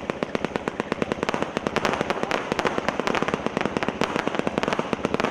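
A 300-shot consumer fireworks cake firing in rapid succession: fast, continuous pops of shots launching and breaking, about eight to ten a second with no pause.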